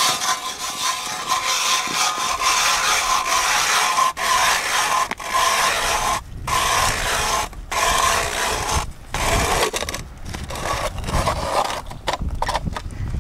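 Hand ice auger cutting into lake ice: a continuous grinding scrape of the blades against the ice, broken by brief pauses that come about every second in the second half.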